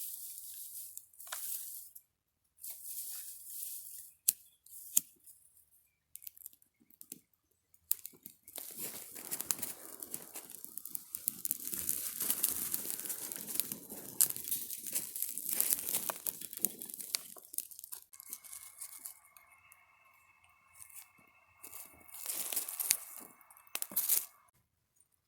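Plastic food packaging being crinkled and torn open in stops and starts, the crackling heaviest in the middle. Near the end a faint steady tone sounds under a few more crinkles.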